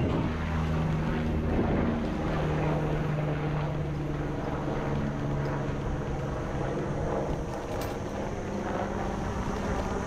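A motor engine's steady low drone, fading after about five seconds, over a rushing wash of noise.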